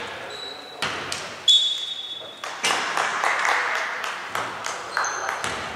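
Basketball game sounds: the ball bouncing on the court several times and short high squeaks of sneakers on the floor, with players' voices calling in the background.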